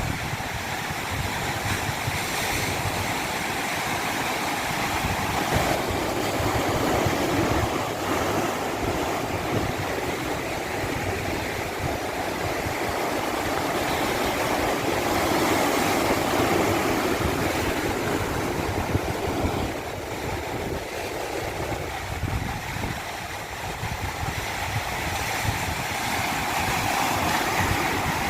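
Rushing water of a stream or small waterfall, a steady noisy flow that swells and eases slowly.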